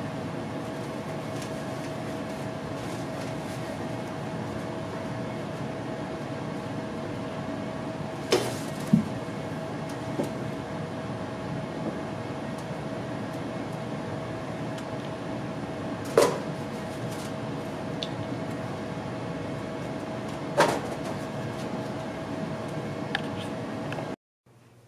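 A steady room hum with one constant tone, broken by four sharp knocks from magic props being handled on a table. The hum cuts off suddenly near the end.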